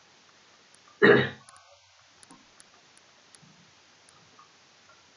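A single short throat sound from a person, like a cough or throat-clearing, about a second in, then quiet room tone with a few faint clicks.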